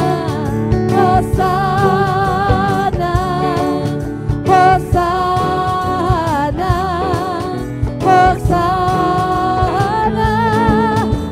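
Live church worship band: several singers on microphones sing a praise song together, holding long notes with vibrato, over keyboard, bass guitar and drums.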